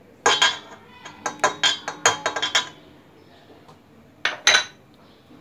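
Quick metallic clinks and knocks against the stainless-steel bowl of a stand mixer, about a dozen in the first three seconds, then two more near the end.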